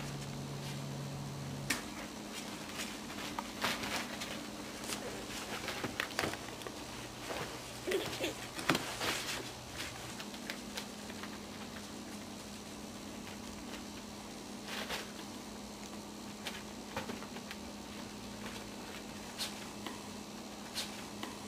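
Maltese puppies scampering and tussling on a plastic drop cloth: irregular crinkling rustles and pattering paw steps, busiest in the first half and sparser later, over a steady low hum.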